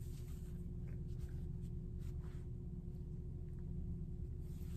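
Quiet room tone with a steady low hum, and a few faint soft rustles as a cloth face mask and its fabric head loop are handled and adjusted.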